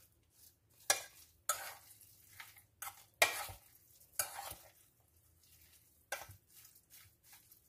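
Hand picking through raw seasoned beef in a stainless steel bowl: a string of short, irregular rustling and squishing sounds, about eight louder ones among fainter ones.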